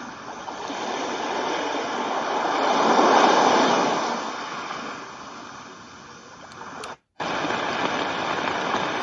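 White noise machine playing a recorded water track through its small speaker: a rushing surge that swells and then recedes, like an ocean wave. About 7 s in the sound cuts out briefly as the machine switches tracks, and a steady, even rushing noise follows.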